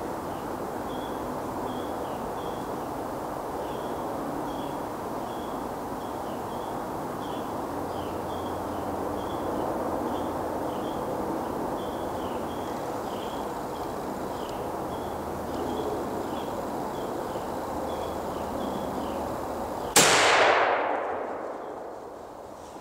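A single muzzleloader shot about twenty seconds in: one sharp blast that dies away over a couple of seconds. Before it there is only a steady hiss of woodland background.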